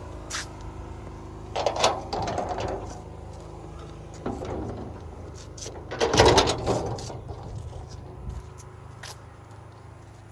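Mechanical clicking and rattling in two bursts, about two seconds in and again, louder, about six seconds in, with a few single clicks between.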